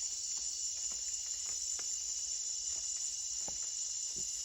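Night chorus of rainforest insects, a steady high-pitched shrill drone, with a few faint ticks.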